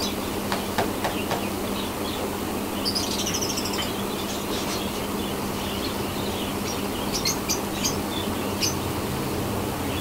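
A flock of caged budgerigars chirping and chattering over a low steady hum, with a few sharp clicks about a second in.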